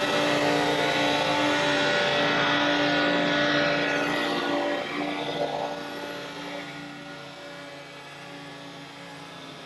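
Scag Turf Tiger mower running with its cutting deck engaged, belts and blade spindles spinning at speed. About five seconds in the sound falls away as the deck winds down, leaving a quieter engine running.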